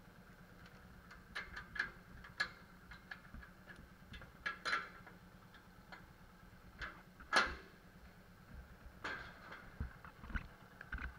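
Padlock and barred steel gate being handled: a string of metallic clicks and knocks, the loudest about seven and a half seconds in, over a steady hum.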